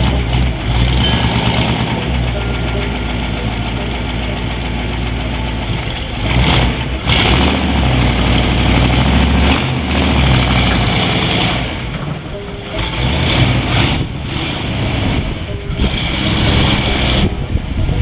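1955 Ford station wagon's 292 Y-block V8 running, revving up in several surges as the car is backed into the garage.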